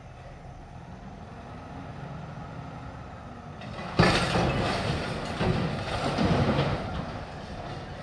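Heil front-loader garbage truck's engine running with a full 8-yard dumpster raised overhead; about four seconds in, a sudden loud crash as the load of trash falls out of the container into the hopper, then rattling and banging for about three seconds.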